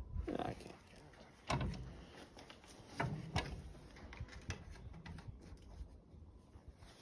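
A few light knocks and clicks, scattered a second or so apart, over a low background rumble.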